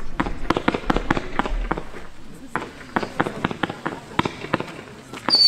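Weco Asgard 180-shot compound fireworks cake firing, tubes going off in quick irregular succession, several shots a second. Just before the end a loud whistle sets in, falling in pitch.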